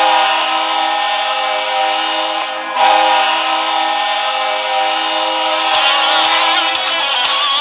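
Bridgeport Sound Tigers' arena goal horn blasting, a loud chord-like blare that starts fresh twice, the second time about three seconds in. Near the end crowd cheering and goal music come in over the horn as it fades.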